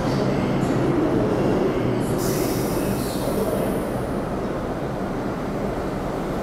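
New York City subway train approaching the station through the tunnel: a steady rumble of wheels on rail, with a hissing high band of noise, likely some wheel squeal, from about two seconds in.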